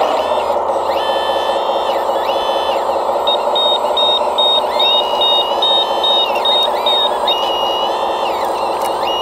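Scale RC hydraulic wheel loader working: a steady diesel engine sound from its sound module, with the hydraulic pump whining up, holding and dropping in pitch several times as the loaded bucket lifts. About three seconds in, a reversing beeper sounds about ten times, roughly two and a half beeps a second.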